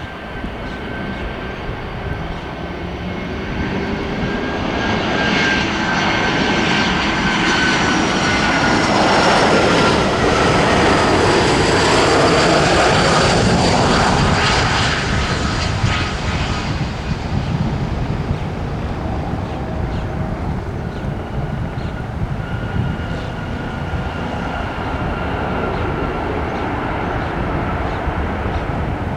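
Airliner's jet engines passing: a rushing roar with a high whine swells to its loudest partway through, then eases off as the whining tones drop slightly in pitch.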